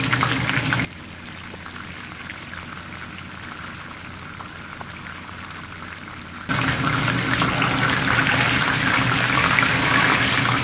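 Moose chuck roast sizzling as it sears in hot canola oil in a stainless steel skillet. The sizzle drops suddenly to a much quieter level just under a second in, then comes back loud about six and a half seconds in as the roast is turned with tongs.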